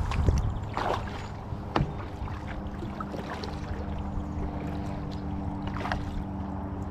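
Paddling an inflatable kayak on calm water: a few paddle splashes and drips, over a low steady hum.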